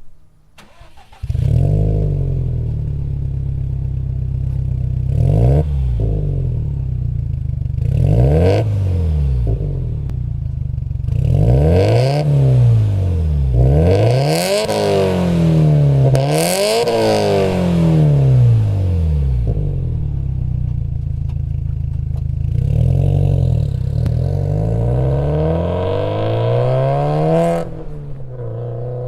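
Subaru WRX STI (VAB) exhaust through an HKS aftermarket muffler, with the engine idling and being free-revved while stationary. It comes in about a second in, gives a couple of short blips, then a run of repeated revs rising and falling, and another run later before settling back to idle near the end.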